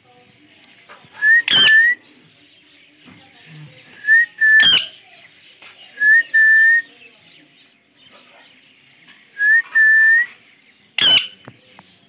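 Rose-ringed (Indian ringneck) parakeet giving three loud, sharp calls that sweep steeply in pitch. Between them come repeated two-note whistles, a short note then a longer one.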